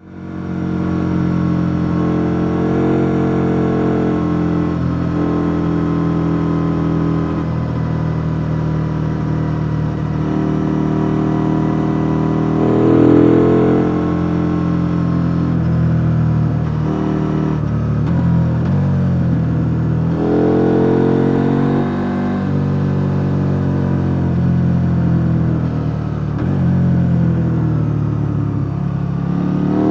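KTM 890 Duke R's 889 cc parallel-twin engine on its stock exhaust, running under way and repeatedly accelerating and easing off, its pitch rising and falling. The sound fades in over the first second, with strong rises in revs about a third of the way in, two-thirds of the way in, and at the very end.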